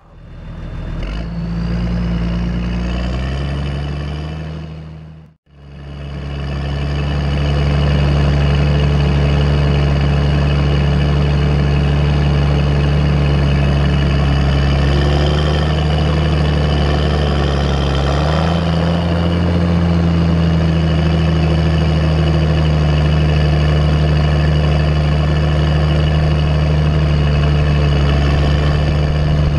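Fendt Vario 920 tractor's straight-piped diesel engine running steadily under way, with a turbo whine over the exhaust note and a high whine rising in the first couple of seconds. The sound cuts out briefly about five seconds in, and the engine note steps up a little about eighteen seconds in.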